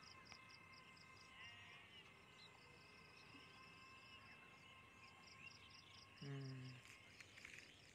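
Faint, steady chirping of an insect, repeating about three times a second, with a brief human voice about six seconds in.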